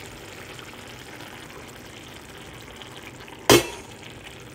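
Meatball tagine in tomato sauce at a simmer, giving a steady soft bubbling hiss as beaten eggs are poured into it. About three and a half seconds in there is one sharp knock, the loudest sound.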